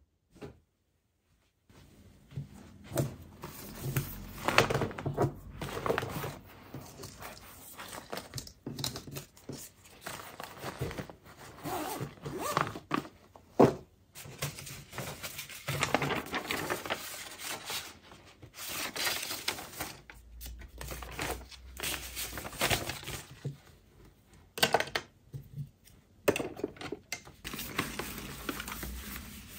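Handling noises: irregular knocks and thunks mixed with crinkling and rustling, as objects are picked up, set down and moved about. It starts about two seconds in after near silence.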